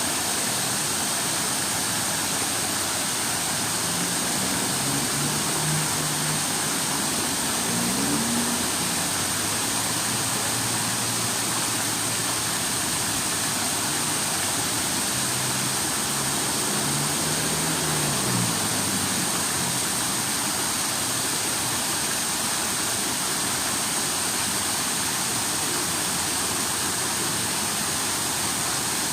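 Steady rush of falling water from a waterfall, unchanging in level, with a faint low pitched sound coming and going twice underneath.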